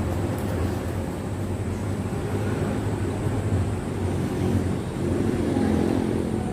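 Steady low rumble, swelling slightly about five seconds in.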